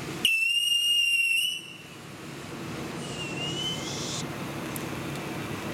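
Black Cat Superior Sea Weed ground fountain firework spraying sparks with a steady hiss. A loud, shrill whistle at one steady pitch cuts in right away and lasts about a second and a half, and a second, fainter whistle follows about three seconds in.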